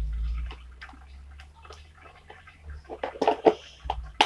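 Slime being squished and worked into other slime in a plastic tub: scattered wet clicks and squelches, with a louder burst of crackling squelches about three seconds in and a sharp click just before the end. A low rumble of handling near the start.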